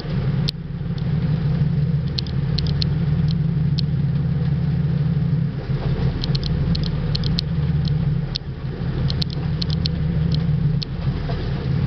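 A fishing boat's engine running with a steady low drone, while short high-pitched ticks come in small runs every second or so.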